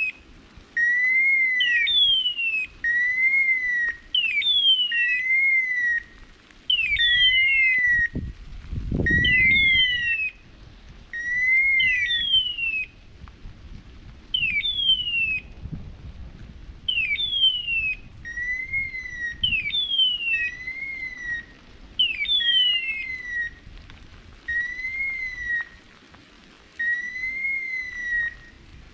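Hunting dog's beeper collar sounding its point-mode signal: a falling electronic whistle paired with a short rise-and-fall tone, repeated over and over roughly every second and a half, the sign that the dog is standing still on point in cover. A low rustle of brush or footsteps comes about eight to ten seconds in.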